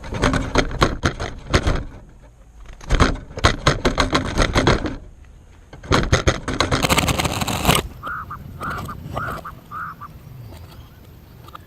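A bird calling harshly in three rapid bursts, then giving four short chirps near the end.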